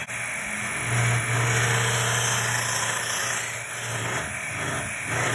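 Electric hand mixer running steadily, its beaters churning through thick cheesecake batter in a plastic bowl, with a constant motor hum and whir.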